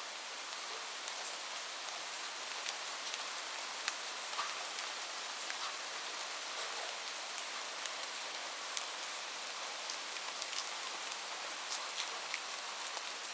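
Steady rain on a roof: an even hiss with frequent sharp individual drop hits scattered through it.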